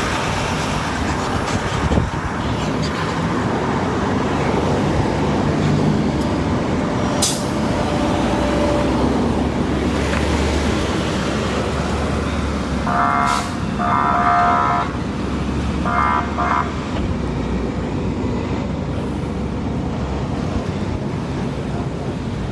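A fire engine's motor runs steadily and loudly at the scene while it supplies water to a hose line on a burning truck. A few short horn-like tones come through about two-thirds of the way in, and there is a single sharp crack earlier on.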